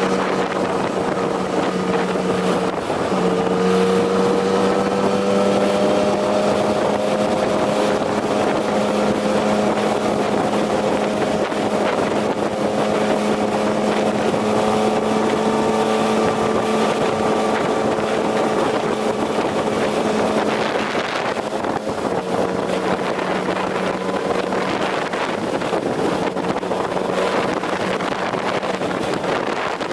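Motorcycle engine running steadily at expressway cruising speed, with wind rushing over the microphone. The engine note rises a little about three seconds in and eases back about twenty seconds in.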